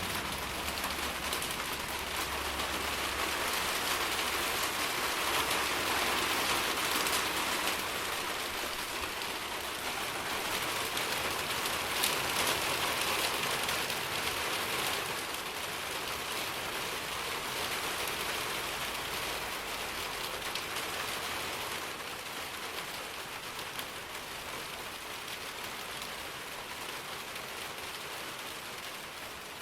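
Steady rain falling: an even hiss of many drops, a little louder in the first half and easing slightly in the second.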